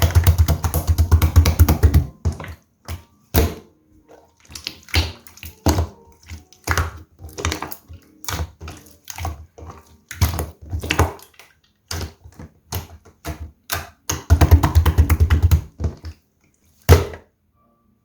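Clear slime being squished and poked by hand, giving sharp wet pops and clicks. There are two runs of rapid crackling, at the start and again near the end, with single pops about every half second to second between them.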